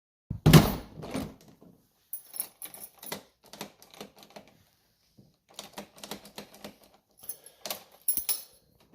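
A loud knock about half a second in, then a run of light, irregular clicks and rattles, like door hardware such as a lock or handle being worked by hand.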